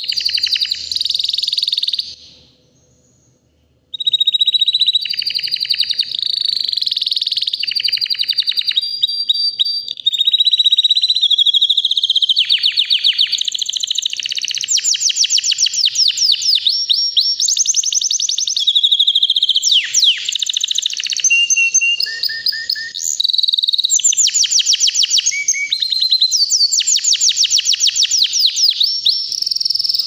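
White domestic canary singing: long phrases of fast, high trills and glides that run on almost without pause. A break of about a second and a half comes a couple of seconds in.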